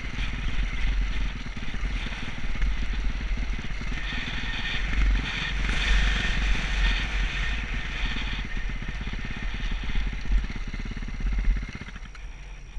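Enduro dirt bike engine running as the bike rides along a grassy trail. Near the end the engine sound drops off sharply as the bike comes to a stop.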